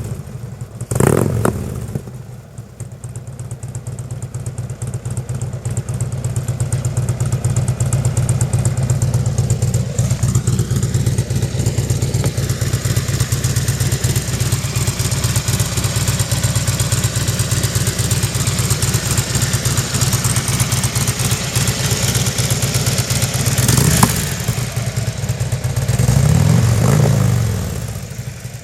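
2014 Harley-Davidson Street Glide's V-twin engine running through Freedom Performance mufflers with a one-off silencer baffle fitted, under test. A throttle blip about a second in, then the exhaust note builds over several seconds and holds steady; near the end a short blip and a rev that rises and falls before it settles back.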